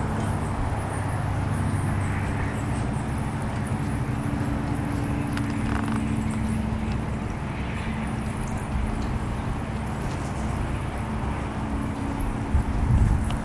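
Steady background hum and rumble, with a couple of low bumps near the end.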